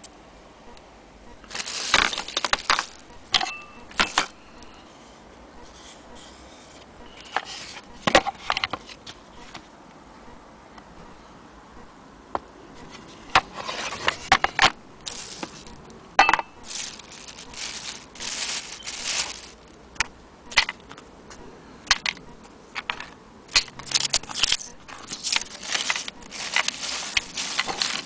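Irregular scrapes, knocks and rustling clicks of parts being handled and moved about on a table: loose screws, a handle and a wooden sewing-machine base being picked up and shifted. The bursts come unevenly, some sharp and loud, with short quiet gaps between.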